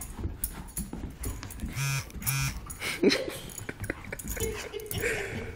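Two dogs, a West Highland terrier puppy and a larger reddish-brown dog, play-fighting: scuffling and scrabbling, two short growl-like sounds about two seconds in, and a loud sharp yelp about three seconds in.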